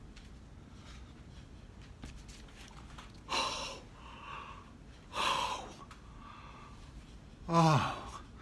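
A man's loud, breathy open-mouthed gasps, two of them about two seconds apart with softer breaths between, then a voiced moan falling in pitch near the end.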